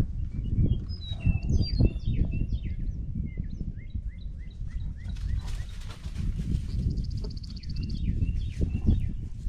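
Many small birds chirping in short, rapid calls, with a buzzy trill about seven seconds in, over a loud, irregular low rumble.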